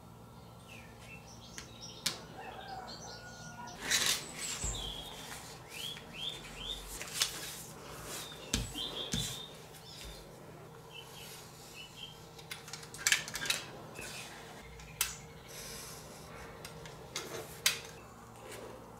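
Hands handling thin aluminium foil and small parts on a wooden table: foil rustling and crinkling as it is smoothed and folded, with scattered sharp clicks and taps, a couple of low thuds, and a few short high chirps.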